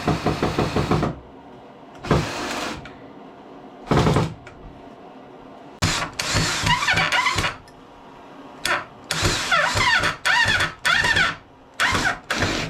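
Power drill driving screws into wood in a series of short bursts, the motor's pitch rising and falling with each pull of the trigger, with a quieter stretch between about one and six seconds in.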